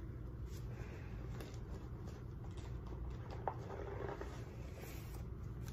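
Faint handling noise of items being moved and set down: light rustling with one small click about three and a half seconds in, over a low steady room hum.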